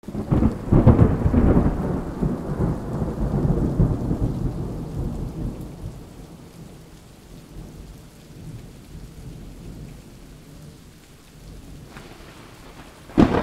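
Thunder rumbling over rain. The rumble is loudest in the first couple of seconds and dies away over about six seconds, leaving a quieter rain hiss.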